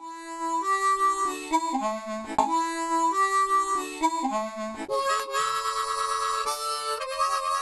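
Harmonica playing a short intro tune: a falling phrase played twice, then a long held note from about five seconds in.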